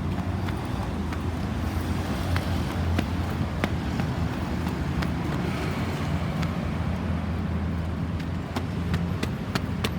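Road traffic: a steady low rumble of vehicle engines and tyres with wind on the microphone and scattered light clicks. No siren is sounding.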